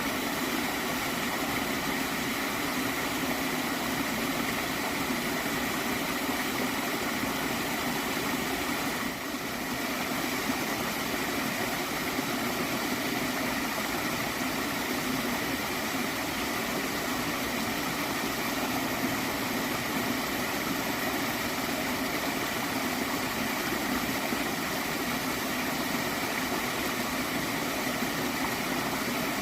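Gently flowing water stream gurgling steadily.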